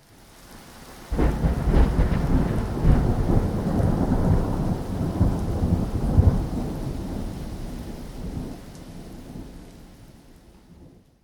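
Rain falling, then a thunderclap breaks about a second in. Its deep rumble rolls on for several seconds, slowly dies away, and the storm fades out near the end.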